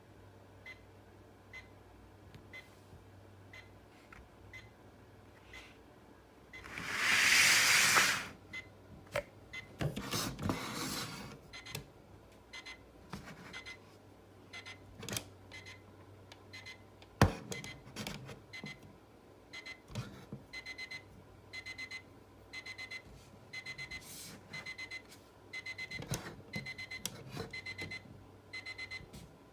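LEGO Star Wars stormtrooper alarm clock's alarm beeping: short high beeps, faint and about one a second at first, then coming in quicker, louder clusters in the later part. A loud hissing burst comes about a quarter of the way in and a sharp click a little past halfway.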